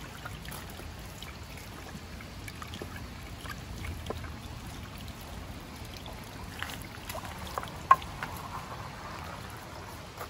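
Water running and trickling steadily, with scattered light taps and one sharp knock about eight seconds in.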